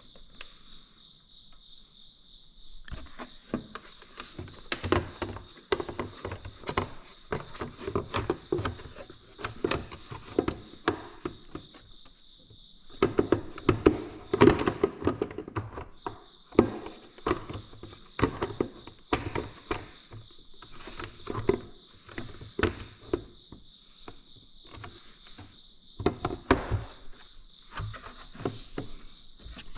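Irregular knocks and clatter of hands working with parts and tools, over a steady high chirring of crickets.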